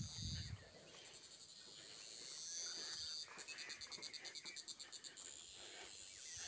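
Insects calling in high-pitched vegetation chorus: a steady buzz, then a fast pulsing trill of about ten pulses a second for a couple of seconds past the middle.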